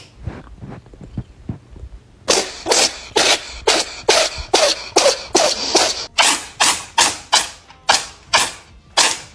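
A cat sneezing in a long fit: a steady string of sharp sneezes, a little more than two a second, starting about two seconds in.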